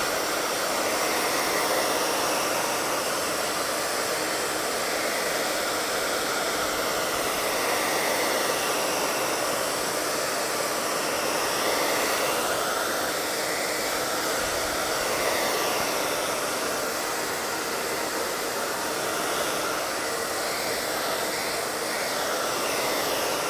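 Handheld hair dryer blowing steadily, drying the fresh sealer varnish on a decoupaged wooden box lid.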